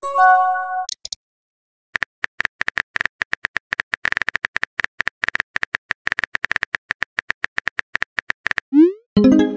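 Rapid, even clicks of a simulated phone keyboard as a text message is typed out, starting about two seconds in. It opens with a short chime of a message popping into the chat, and near the end a rising swoosh and another chime as the typed message is sent.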